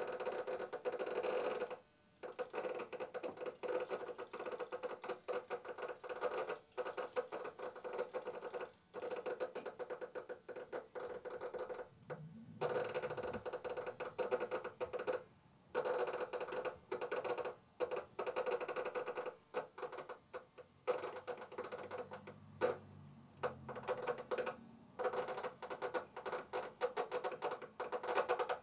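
Hand-cranked mutoscope turning its reel of Polaroid photos: a rapid flutter of cards flicking past one by one, in runs of a few seconds broken by short pauses in the cranking.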